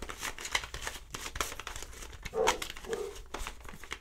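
Rapid plastic clicking and clacking of a YuXin Penguin 2x2 puzzle cube being turned fast to finish a solve with a Y perm. Two short, louder sounds come about two and a half and three seconds in.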